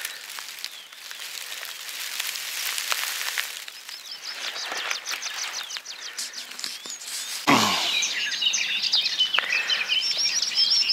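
Small birds chirping and singing outdoors, the chirps starting about four seconds in, over a rustling noise. About seven and a half seconds in comes a short falling swoosh, and the sound gets a little louder from there.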